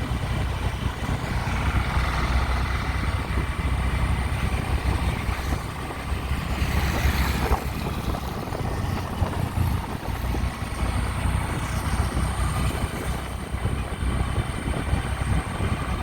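Steady road and wind noise of a moving vehicle, a low rumble that flutters in loudness with no clear engine note.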